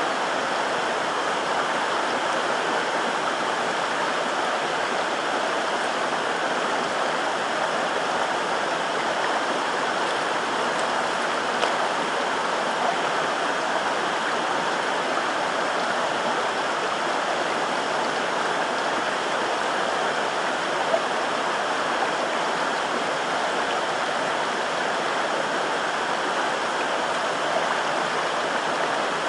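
A stream flowing, a steady rushing of water with a few faint clicks.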